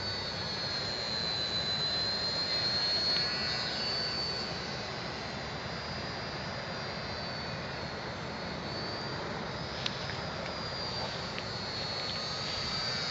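Electric motor and propeller of a ParkZone Ultra Micro Pole Cat RC plane in flight: a high, thin whine that drifts down and back up in pitch as it flies around.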